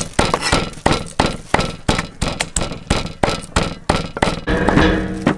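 Cleaver chopping pork on a wooden chopping block, sharp knocks about three a second as the meat is minced.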